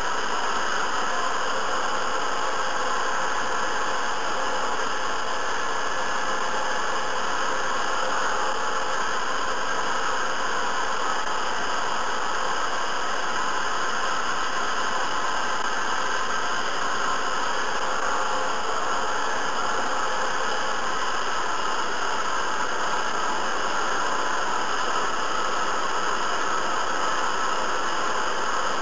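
Hair dryer running steadily: a constant rush of air and motor noise with no change in level or pitch.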